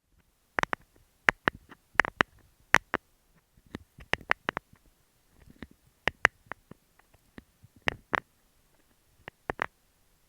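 Fingernails tapping on an earphone microphone: irregular sharp taps, often in quick pairs or small clusters, with short pauses between.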